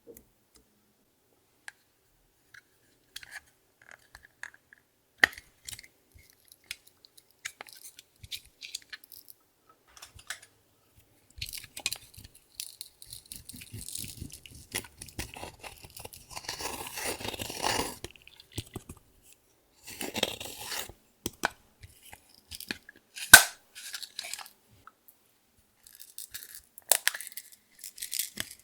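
Clear slime with makeup and glitter being worked by hand: scattered sticky clicks and pops at first, then denser crackling and squishing from about eleven seconds in, with one sharp snap past the middle.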